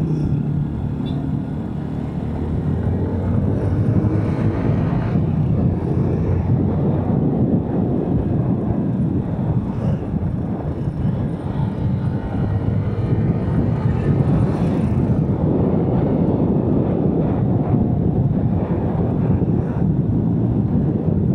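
Yamaha SZ single-cylinder motorcycle engine running under way, mixed with a steady rush of wind on the microphone and road noise, growing louder over the first few seconds and then holding steady.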